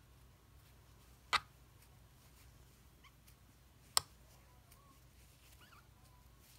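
Two short, sharp clicks about two and a half seconds apart over quiet room tone.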